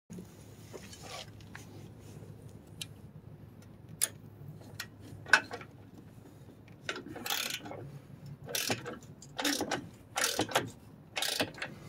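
Hand ratchet wrench clicking on the upper control arm bolts of a pickup's front suspension. A few separate clicks come first, then about five quick back-and-forth strokes in the second half.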